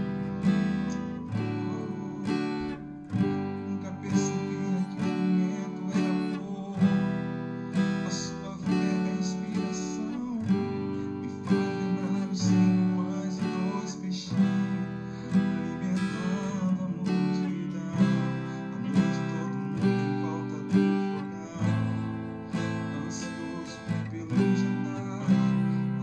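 Acoustic guitar strumming a slow chord progression of G, D/F# and Em in a steady slow pop rhythm. Each chord is struck with a sharp strum and left to ring, changing every second or two.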